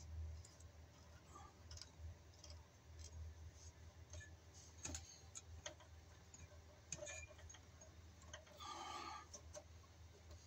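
Faint, scattered clicks and light rubbing of a plastic twist-on wire nut being screwed onto stranded copper wires, its inner spring biting the strands, with a brief rustle near the end.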